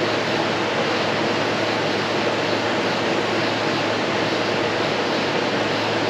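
Window air conditioner running: a steady noise from its fan with a constant low hum from its compressor. It is running while being charged with R-134a refrigerant and drawing the charge in from the can.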